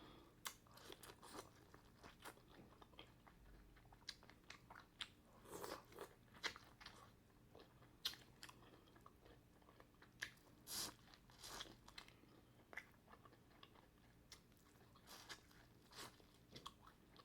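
Faint close-up chewing, with irregular soft crunches and wet mouth clicks of someone eating.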